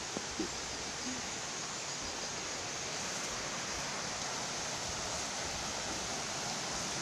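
Steady rushing of running water, an even hiss with no rhythm, with a couple of faint short sounds in the first second.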